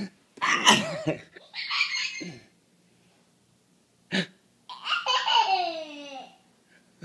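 Young child laughing in short bursts, then a quiet pause, a short sharp sound, and a longer peal of laughter about five seconds in that falls in pitch.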